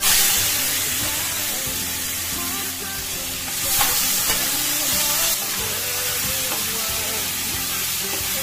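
Masala-coated chicken pieces sizzling in hot oil in a non-stick kadai. The sizzle starts suddenly as they hit the oil, and a wooden spatula stirs them through it.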